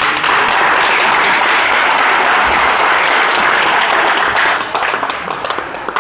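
Spectators applauding: a dense burst of clapping that starts at once and tapers off after about four and a half seconds.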